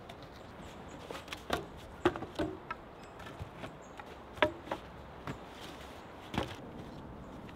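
Sticks and poles of a wooden bushcraft shelter knocking and snapping as it is pulled apart: about seven sharp knocks at uneven intervals.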